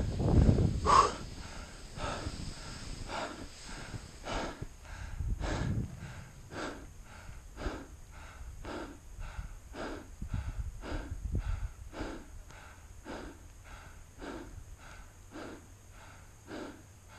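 A snowboarder breathing hard and fast, out of breath after riding down in an avalanche: short, heavy breaths in an even rhythm, about two a second. There is a louder low rumble in the first second, and again briefly twice later.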